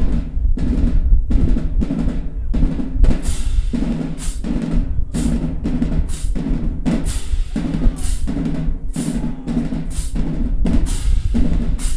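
Marching band drumline playing a cadence: snare drums, bass drums and crashing cymbals on a steady, driving beat.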